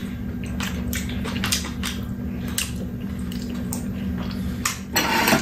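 Wet chewing and lip-smacking of people eating tteokbokki: small irregular clicks, a few a second, over a low steady hum, with a brief louder noise near the end.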